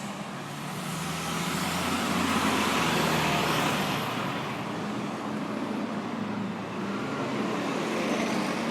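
City street traffic with one motor vehicle passing close by. Its engine and tyre noise swells over the first few seconds and fades, and a second, smaller swell comes near the end.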